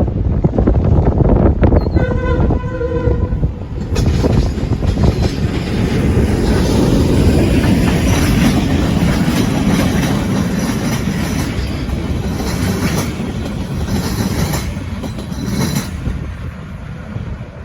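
Canadian National diesel locomotive horn sounding briefly in short, broken blasts about two seconds in. The train then runs past loudly, with wheels rumbling and clattering on the rails, easing off near the end.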